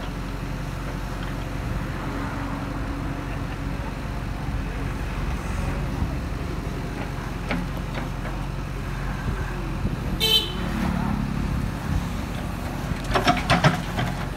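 JCB 3DX backhoe loader's diesel engine running steadily under hydraulic load as the backhoe digs and swings. About ten seconds in there is a brief horn toot. Near the end come a few sharp knocks and clatter as soil and stones drop from the bucket into the truck's bed.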